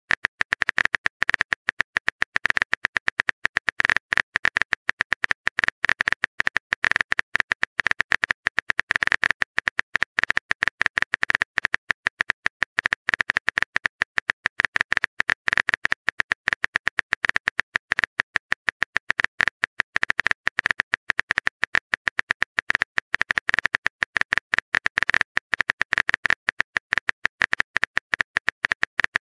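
Rapid, even stream of phone-keyboard tap clicks, one per letter, from a texting-app typing sound effect as a message is typed out.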